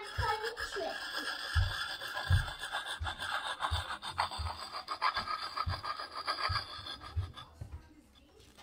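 Lansky puck sharpening stone rasping in quick short strokes along the steel edge of an old hatchet, a steady gritty scrape with occasional low knocks, stopping about a second before the end.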